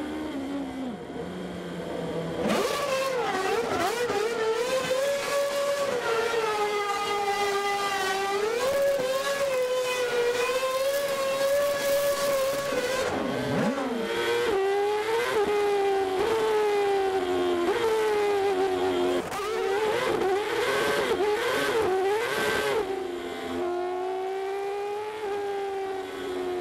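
Formula One show car engine running at high revs. Its pitch climbs and falls again and again, with a sharp drop about halfway through and a run of quick throttle blips after it.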